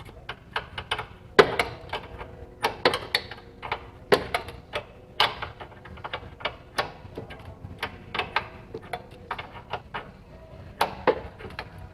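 Hand ratchet wrench clicking in short, irregular strokes on a tight engine fastener: sharp metal clicks, one or two a second, some with a brief ring.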